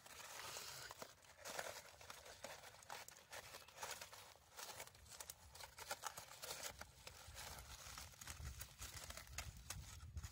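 Aluminium foil and newspaper wrapping around a roasted sweet potato crinkling faintly as it is handled, in many short crackles. A low rumble runs underneath and grows louder near the end.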